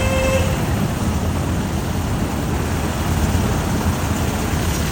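UH-60M Black Hawk helicopter hovering overhead: steady, loud rotor and engine noise.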